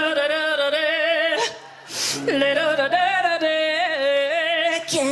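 A solo voice singing long held notes with a wide vibrato, in two phrases broken by a short pause for breath about a second and a half in.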